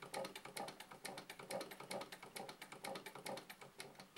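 Hand-cranked Singer 66 sewing machine being turned by its hand crank: the mechanism gives a faint, rapid, even clicking.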